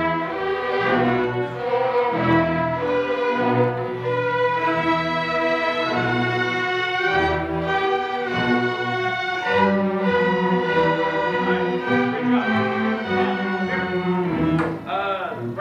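Student string orchestra of violins, violas and cellos playing a piece together, bowed, under a conductor's baton; the playing stops near the end.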